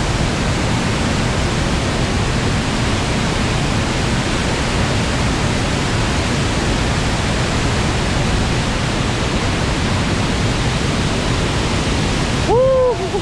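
Steady roar of a large river waterfall in high flow pouring into a pool. A brief shout breaks in near the end.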